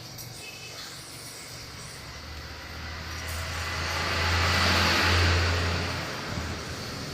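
A motor vehicle passing by: its noise swells over a couple of seconds, peaks about five seconds in, then fades away.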